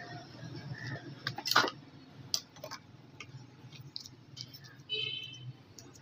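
Scattered small clicks and taps over a low steady hum, the loudest about one and a half seconds in. About five seconds in, a short high tone sounds briefly.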